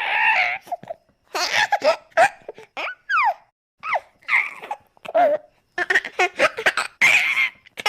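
A baby giggling and squealing happily in short bursts with brief pauses, a few of the squeals sliding down in pitch.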